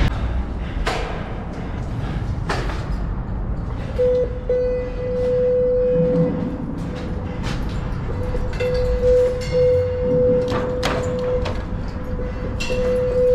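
Bicycle riding noise, a steady rumble broken by a few sharp knocks, as the bike passes through a narrow corridor and metal gates. From about four seconds in, a steady high tone holds, breaking off briefly and coming back.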